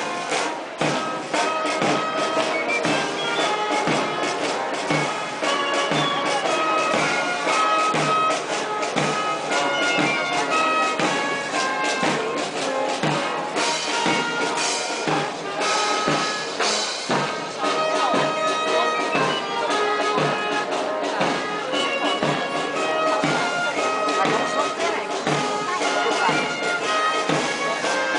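Brass band playing a march, with held brass notes over a steady drum beat about twice a second.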